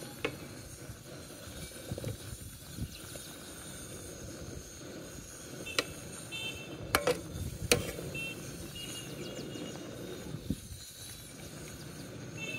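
Steady outdoor background noise, with a few sharp clicks about six to eight seconds in from a metal ladle knocking against the pan as sauce is spooned over the fish.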